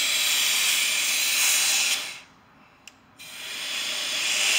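Compressed air hissing from a blow gun through a tractor's A/C line, pushing the old flush solvent out of the system. The air cuts off about two seconds in, there is a small click, and the hiss builds back up about a second later.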